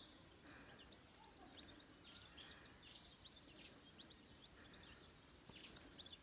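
Faint chirping and twittering of many small birds: quick high calls, repeating throughout, over a soft hiss of outdoor background noise.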